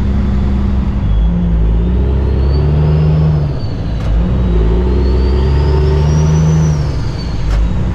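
Cummins ISX diesel of a 2008 Kenworth W900L heard from inside the cab, accelerating up through the gears: the revs climb in each gear and drop at an upshift, twice, once midway and once near the end.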